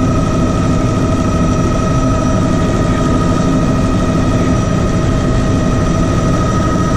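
Bell 206B JetRanger III helicopter heard from inside the cockpit, climbing out after takeoff: the Allison 250 turboshaft's steady whine, several high tones held level over the low, even drone of the rotor.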